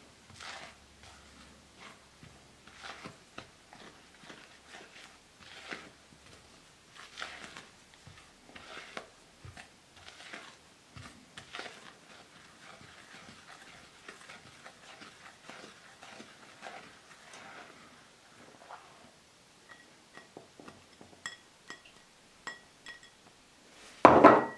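Silicone spatula stirring dry scone flour mix in a glass bowl: short, soft scraping strokes against the glass about once a second. Near the end, one much louder knock.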